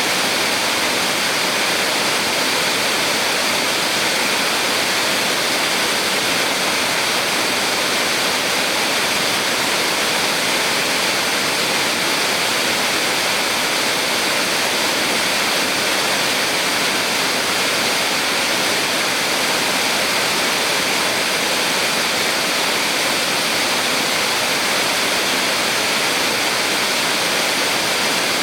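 Small waterfall on a mountain stream: water falling and rushing in a steady, unbroken hiss.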